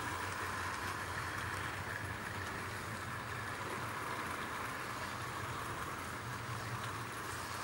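00 gauge model train, a Bachmann Gresley A4 locomotive hauling Pullman coaches, running steadily along the track: an even noise of the motor and the wheels rolling on the rails.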